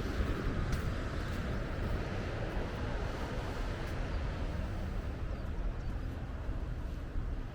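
Steady outdoor ambience: a low, unsteady rumble with a hiss above it and a few faint clicks.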